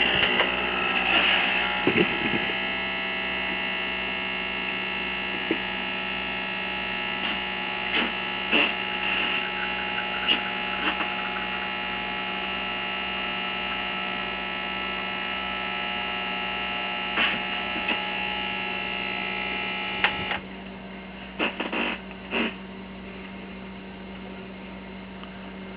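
Starbucks Barista stainless-steel espresso machine's vibratory pump running while it pulls a shot of espresso through a pod: a steady hum that cuts off suddenly about twenty seconds in. A few faint clicks follow.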